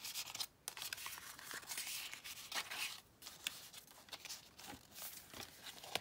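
Paper tags and cards rustling and scraping as they are slid in and out of a paper pocket in a handmade journal, a light continuous rustle with small clicks and a couple of brief pauses.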